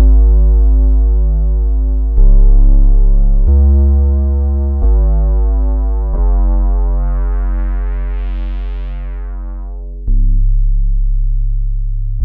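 Roland Juno-106 analog synthesizer playing a deep bass patch, one held note after another with a sharp start and slow fade, six notes in all. On the long fourth-from-last note the filter sweeps open and then closes again. There is a slow wobble in the tone.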